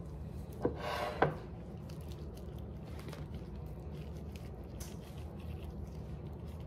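Soft squishing and scraping of a butter knife pressing cream cheese filling into the slits of a raw chicken breast, with a couple of brief louder scrapes about a second in. A steady low hum runs underneath.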